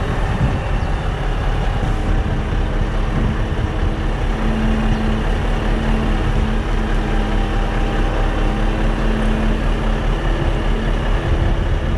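Heavy diesel truck engines running at low revs during slow maneuvering, a steady drone with a low hum held through most of it.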